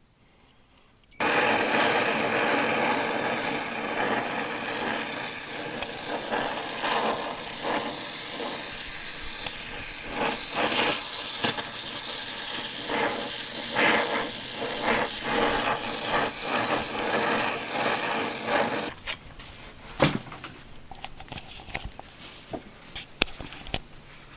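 A power tool's motor starts about a second in and runs steadily, with a rattly, uneven grind, for about 18 seconds, then stops. Scattered clicks and knocks of metal tools follow.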